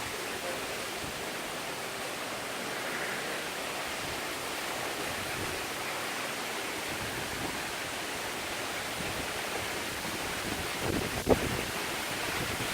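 Steady rushing noise of hurricane wind and driving rain, with a short sharp knock about eleven seconds in.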